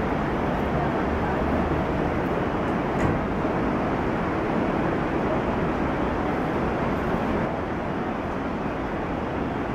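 BR Standard Class 9F 2-10-0 steam locomotive moving slowly, heard as a steady rushing noise with faint voices of onlookers beneath it. A single sharp click about three seconds in.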